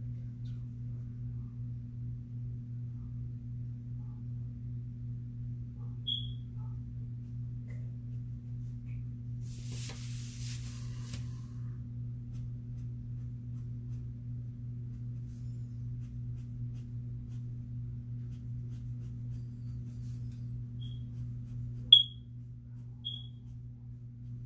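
A steady low hum, with a few short high-pitched chirps: one about six seconds in and three near the end, the middle one sharp and much the loudest. A brief soft hiss about ten seconds in.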